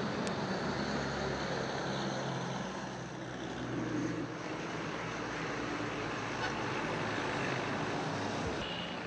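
Steady outdoor traffic noise, with a motor vehicle's engine running nearby as a low hum.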